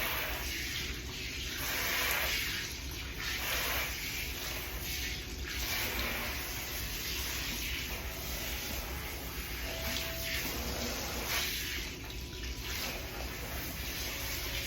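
Water running from a salon shampoo-bowl sprayer, rinsing shampoo out of a client's hair. The hiss of the water rises and falls as the spray moves over the head.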